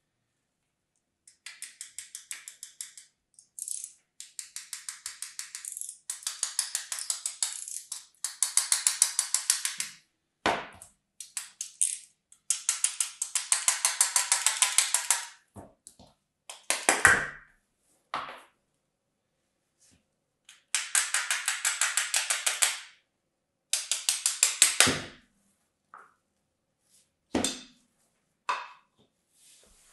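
Runs of fast, scratchy ticking, one to three seconds at a time, as plastic ice-cream sand molds and kinetic sand are scraped and worked by hand, with a few dull knocks as the molds are set down.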